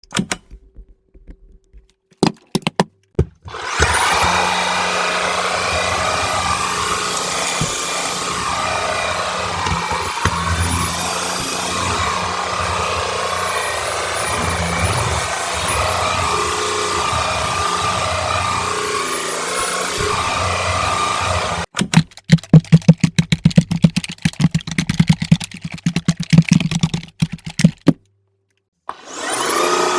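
Shark EVOPOWER SYSTEM iQ+ cordless stick vacuum switched on after a few clicks, running steadily with a high whine as it picks up sawdust. About 22 seconds in the motor stops and a fast run of loud knocks and clatter follows for about six seconds. The motor starts again near the end.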